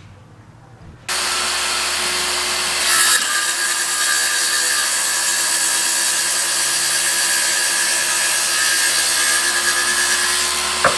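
Festool HKC 55 18V cordless circular saw starting up about a second in and running at steady speed as its blade cuts through a timber block.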